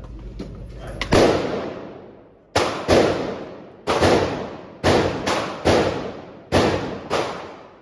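Gunfire at a shooting range: about ten sharp shots at irregular spacing, some in quick pairs, each followed by a long echoing decay.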